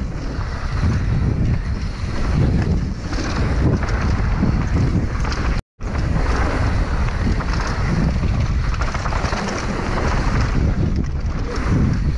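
Wind rushing over a helmet-mounted GoPro's microphone at speed, mixed with the rattle and tyre noise of a downhill mountain bike on a dirt trail. The sound drops out completely for an instant a little before halfway.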